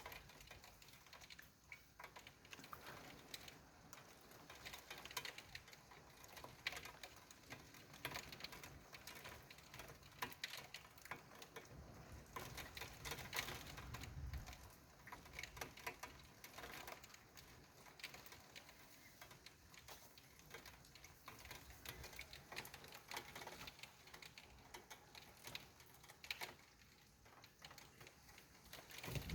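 Faint, irregular ticking of raindrops tapping on a nearby surface during a heavy thunderstorm. About twelve seconds in, a low rumble of distant thunder lasts a couple of seconds.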